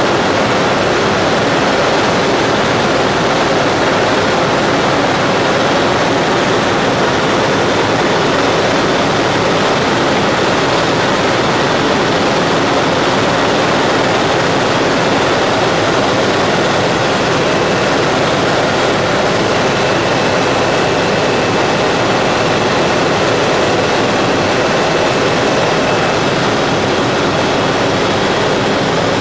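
Aerospatiale helicopter in cruise flight, heard from inside the cabin: the turbine and rotor run with a loud, steady, even rushing noise that does not change.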